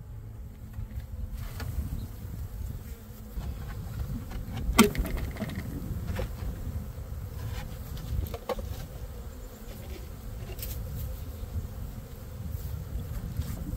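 Honeybees buzzing steadily around an opened hive. Wooden hive parts knock and scrape as they are handled, with a sharp knock about a third of the way in and a softer one a few seconds later.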